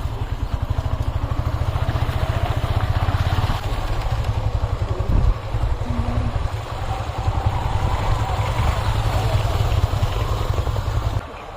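Motorcycle engine running under way, a steady low rapid pulsing with wind and road noise over it, cutting away suddenly near the end.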